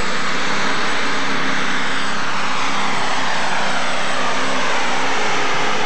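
Super stock pulling tractor's turbocharged engine running flat out under load during a pull: a loud, steady, dense engine noise with a faint pitch that slowly falls.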